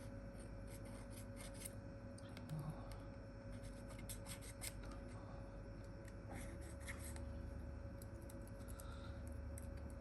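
Faint, scattered scraping and small clicks of a razor blade scraping excess glue off the edge of a freshly glued phone screen, over a faint steady hum.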